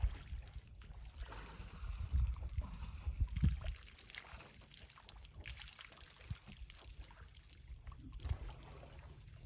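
Outdoor ambience at a waterhole: an uneven low rumble of wind buffeting the microphone, loudest in the first few seconds, with faint trickling and splashing of water and scattered small knocks.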